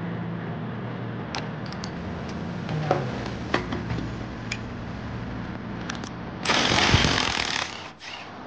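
A power tool, an impact wrench or powered ratchet on a long socket extension, runs once for about a second and a half to undo a bolt under the car. Before it come several light metallic clicks and clinks of tools and parts being handled.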